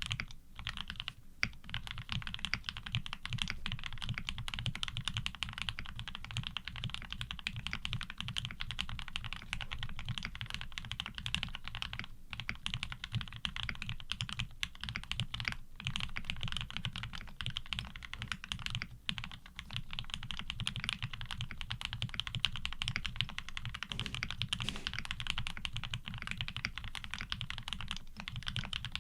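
Fast continuous typing on a 7V custom mechanical keyboard with lubed Gateron Ink Black linear switches and GMK keycaps, with a few brief pauses.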